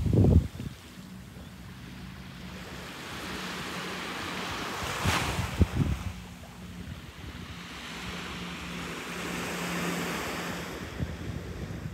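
Small Gulf waves lapping and washing up a sandy beach, swelling twice as they break. Wind buffets the microphone in low thumps at the start and about halfway through.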